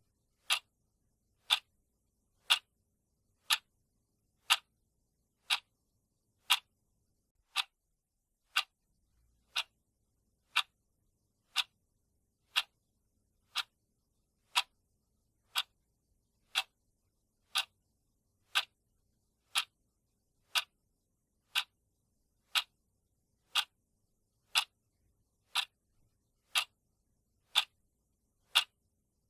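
Countdown timer's clock-tick sound effect: one sharp tick every second, evenly spaced.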